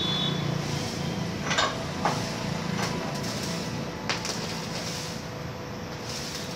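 Arc welding on a steel gate frame: a few sharp cracks in the first part of the clip as the arc is struck, over a steady hum.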